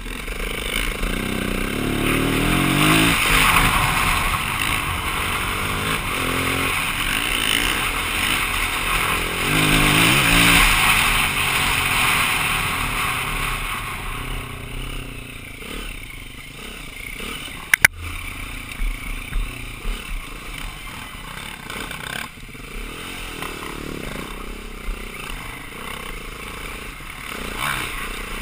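Single-cylinder four-stroke engine of a 2009 BMW G450X dual-sport motorcycle under way, rising in pitch as it accelerates hard twice in the first half, then running more quietly. A sharp click about two-thirds of the way through.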